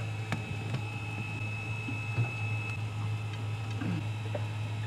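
Steady low hum with a faint high-pitched whine over it, and a few light clicks and taps as parts are handled at the mounted transformer unit.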